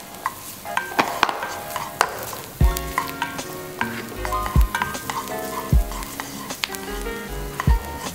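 Chopped onion and garlic sizzling in hot oil in a frying pan as a wooden spoon stirs them, with sharp clicks of the spoon against the pan. Background music plays throughout, its bass notes coming in about two and a half seconds in.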